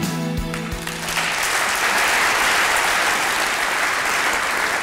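Background music that stops about a second in, followed by an audience clapping steadily.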